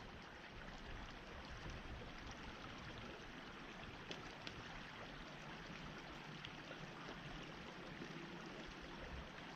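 Faint, steady rushing background noise outdoors, with a few small ticks.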